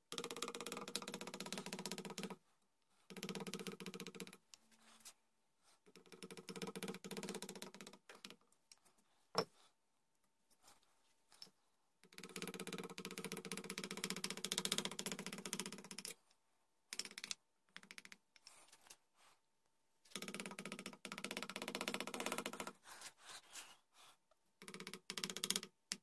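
Hand carving tool cutting and scraping a wooden gunstock in strokes of one to four seconds with a fine rapid chatter, separated by short pauses, and one sharp click about a third of the way in.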